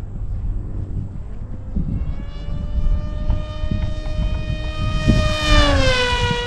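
Electric 2212 1400 kV brushless motor and 7x5 pusher propeller of an RC flying wing whining as it makes a full-speed pass, getting louder, then dropping in pitch as it goes by about six seconds in. Wind rumbles on the microphone underneath.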